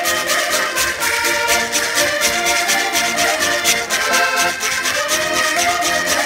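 Several concertinas (diatonic button accordions) playing a folk dance tune together, with a strummed guitar keeping a steady beat.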